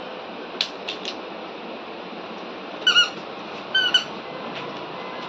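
Short high-pitched squeaks from a squeaker, in two pairs about a second apart, after a few light clicks near the start.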